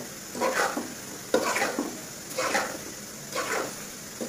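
Metal spatula stirring and scraping shredded raw mango through hot sugar syrup in a kadai, in four even strokes about a second apart.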